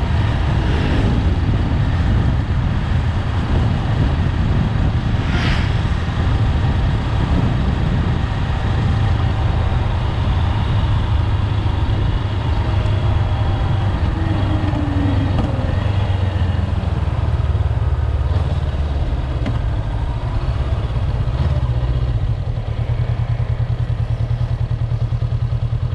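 Honda 400X motorcycle's parallel-twin engine running as it is ridden, a steady low drone that settles into an even pulsing near the end.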